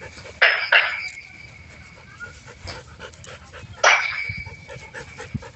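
Dog barking sharply: two quick barks near the start and one more about four seconds in, with dogs panting in between.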